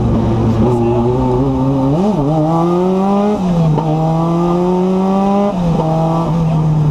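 Renault 5 Turbo rally car's turbocharged four-cylinder engine, heard from inside the cabin, accelerating hard out of a tight bend. The pitch climbs, drops at an upshift about three and a half seconds in, climbs again and drops at a second upshift about five and a half seconds in, then holds steady.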